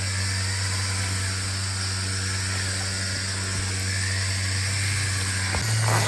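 Steady low machine hum with an even high hiss over it.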